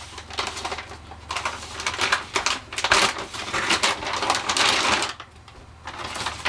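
Plastic packaging bags crinkling and rustling as RC tires are handled and pulled out of them, in irregular bursts with a short pause near the end. A steady low hum runs underneath.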